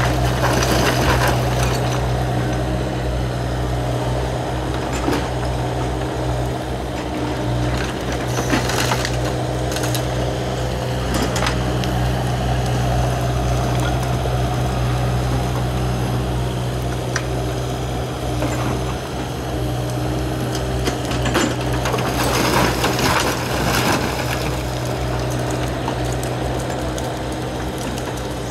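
Kobelco SK75 excavator's diesel engine running steadily while its grab tears down stone walls and old timber, with crashes of falling stone and splintering wood. The crashes are loudest about nine seconds in and again around twenty-two to twenty-four seconds in.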